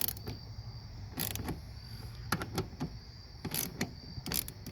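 A wrench working the bolt of a new battery cable clamp, giving a few irregular sharp metallic clicks and scrapes; the clamp's bolt is stripping out at the bottom as it is tightened.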